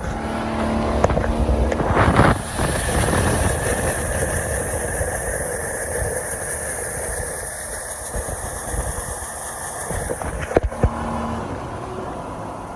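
An engine running steadily, with two sharp knocks close together near the end.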